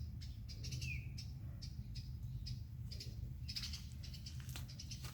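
Small songbird parents giving repeated short, sharp, high chirps around their fledgling that has just left the nest, with one short falling note about a second in.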